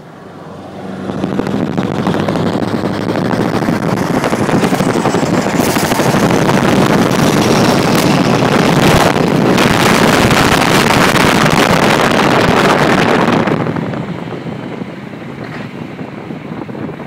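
Scania truck running with an open exhaust, no silencer, as it passes close alongside: a loud, rough engine sound mixed with wind on the microphone. It swells about a second in and drops away near the end.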